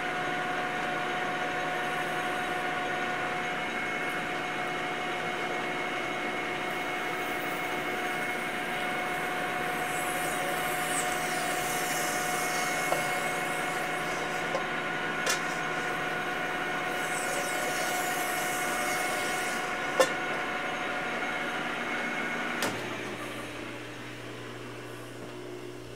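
Emco V13 lathe running with a steady machine whine while a flex hone is worked in and out of the oiled bore of a spinning steel die, giving two stretches of hissing scrub and a few sharp clicks. The whine stops about 23 seconds in, leaving a lower hum as the machine runs down.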